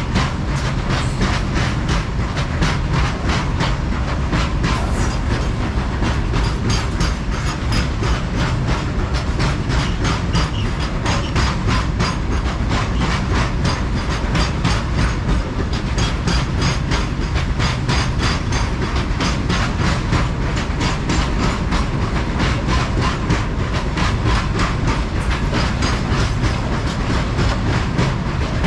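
Coal freight train wagons rolling past, their steel wheels clattering over the rail joints in a fast, steady clickety-clack over a continuous low rumble.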